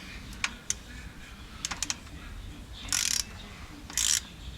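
A few sharp metallic clicks of a ratchet wrench tightening the transfer case fill plug, then two short hissing bursts about a second apart.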